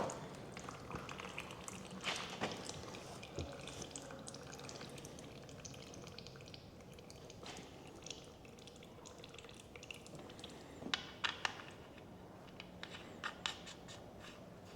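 Gear oil dripping from a Polaris Sportsman 850 gearbox's drain hole into a drain tray: faint drips and small taps, a few sharper ones in the second half.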